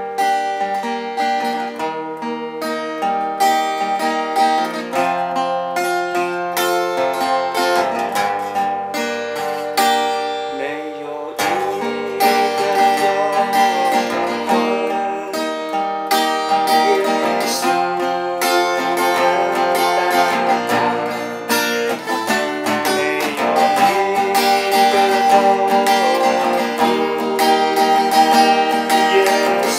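Acoustic guitar playing a slow worship-song accompaniment; a man's voice starts singing the song along with it about twelve seconds in.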